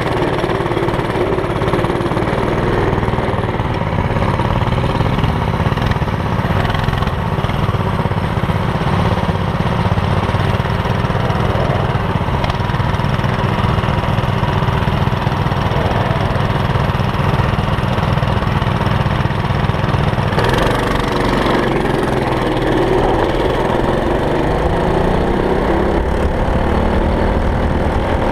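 Small single-cylinder engine of a go kart running steadily while riding. About two-thirds of the way through the note changes and climbs steadily in pitch as the engine revs up.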